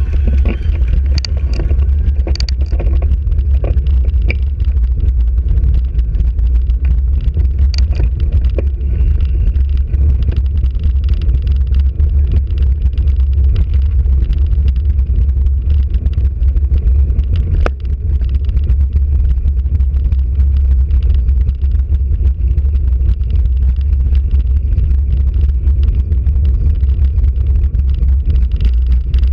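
Steady low rumble of wind buffeting and road vibration on a camera mounted on a moving bicycle riding over brick paving, with a few sharp clicks in the first few seconds.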